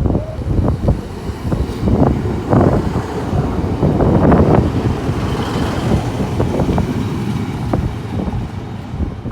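Wind buffeting the microphone over a low, uneven rumble, with gusts swelling and dropping.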